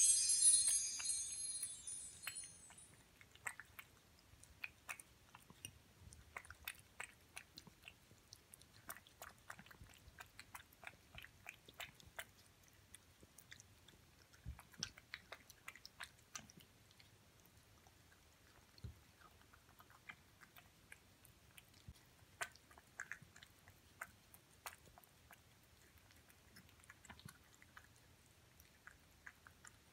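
A cat eating wet food chunks in sauce from a ceramic dish: quiet, irregular wet chewing and licking clicks, several a second. A chiming jingle fades out in the first two seconds.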